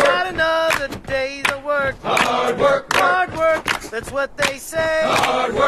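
Music with chanted male vocals over sharp percussive hits.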